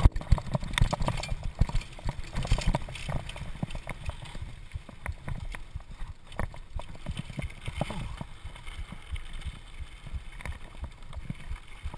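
Mountain bike rattling over a rough dirt trail at speed: a rapid, irregular run of knocks and clatters over a low rumble, loudest in the first few seconds.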